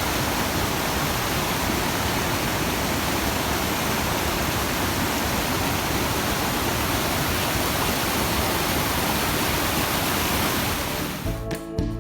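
Steady rushing of the Salto de Agua waterfalls and rapids on the Tulijá river, an even, dense roar of falling water. Near the end it gives way to music.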